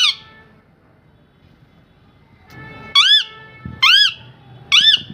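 Parrot calling: one short squawk right at the start, then three loud squawks about a second apart near the end, each rising and then falling in pitch.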